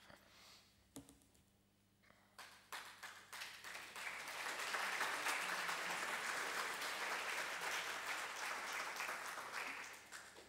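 Audience applauding: a few scattered claps about two seconds in, swelling into full applause for several seconds, then dying away near the end.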